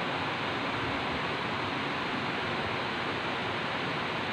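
River water pouring over a low weir, a steady rushing noise from the swift current.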